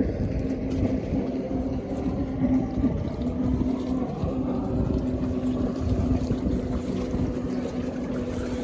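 Motorboat engine running with a steady hum, over low rumbling wind noise on the microphone.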